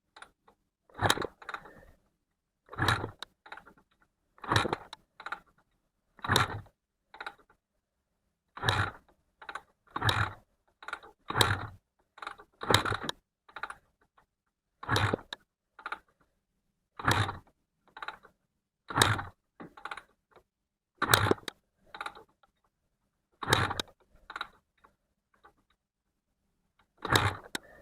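Honda NSR250R two-stroke V-twin being kick-started over and over, choke on: more than a dozen clunking kicks of the kickstart lever, each a short turn-over, every couple of seconds. The engine never fires or catches between kicks, so it will not start.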